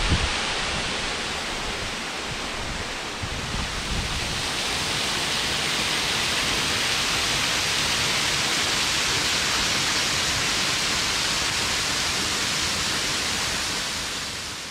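Waterfalls pouring in many thin streams off a rock bluff onto the rocks below: a steady rushing hiss of falling water that swells about four seconds in and eases near the end.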